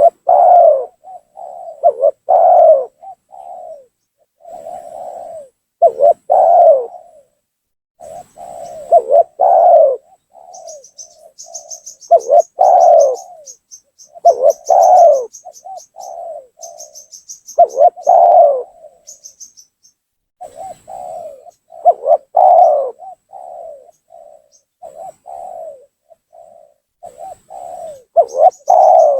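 Spotted dove cooing over and over: short runs of soft notes, with a louder coo that rises and falls about every two seconds. Through the middle, a rapid high twittering from a small bird runs under the cooing.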